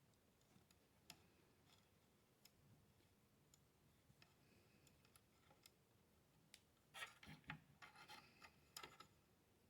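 Faint scattered clicks and light scraping of a pin punch and small parts being worked on an AR-15 lower receiver, with a busier run of clicks and rubbing about seven seconds in.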